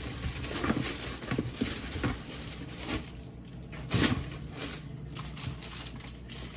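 Tissue paper rustling and crinkling as it is pulled out of a cardboard shipping box, with the knocks of a cardboard shoe box being handled; one louder knock about four seconds in.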